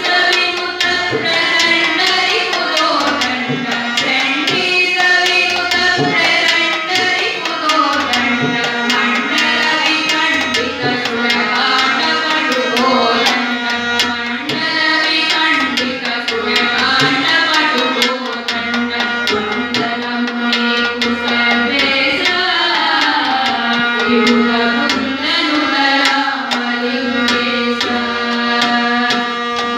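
A group of women singing a devotional song in unison through a microphone, accompanied by a harmonium holding steady notes under the melody and a steady percussion beat.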